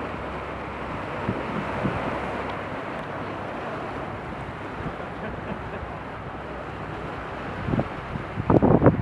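Wind rushing across the microphone on a moving cruise boat, a steady noise with the boat and water underneath, then heavier gusts buffeting the microphone in loud irregular thumps near the end.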